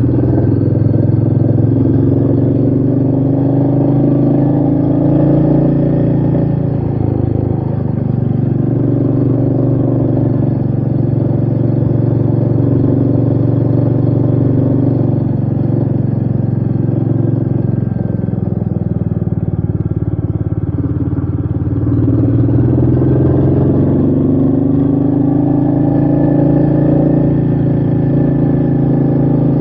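Royal Enfield Meteor 350's single-cylinder engine running under way, heard from the rider's seat. Its pitch falls and rises with throttle and gear changes: it drops about a quarter of the way in and again past the middle, then climbs back.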